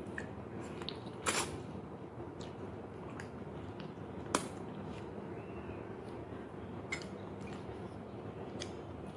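Close-up eating sounds of a person chewing steamed grouper, with a few sharp clicks and knocks, the loudest about a second in and another just over four seconds in.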